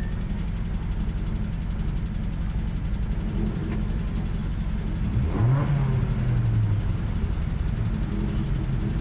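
Rally car engine idling, revved up quickly about five seconds in, held at higher revs for a second or so, then dropping back to idle.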